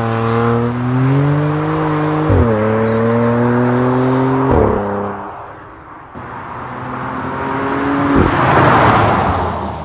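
BMW M3's twin-turbo inline-six accelerating hard, its pitch climbing with two quick upshifts about two and a half and four and a half seconds in, then fading as the car pulls away. On a second run the engine rises again and the car passes close by in a loud rush of noise near the end.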